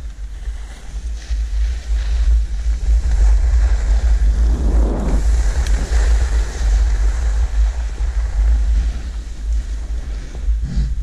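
Wind buffeting the body-mounted camera's microphone as it skis downhill, a heavy steady rumble, with the skis hissing over packed snow; the hiss swells about halfway through.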